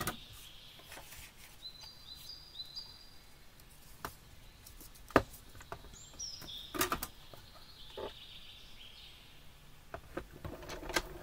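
Irregular clicks and knocks of a thick metal cutting die and a plastic cutting plate being handled and run through a manual die-cutting machine. With only one plate the stack is too thin, so it passes through loosely without cutting. Faint short high chirps, like a small bird's, sound in the background.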